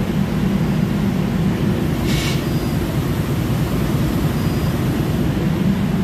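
Steady low mechanical rumble of background machinery, with a brief hiss about two seconds in.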